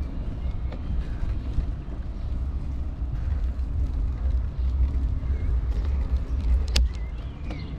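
Bicycle riding slowly over a paved path: a steady, fluttering low rumble of wind on the camera microphone and tyre and frame vibration. A single sharp click comes near the end.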